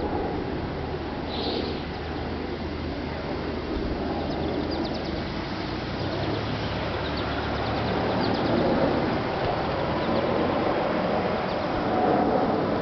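ASC (American Signal) T135 AC/DC outdoor warning siren sounding its steady alert tone, faint under the outdoor noise and growing louder toward the end.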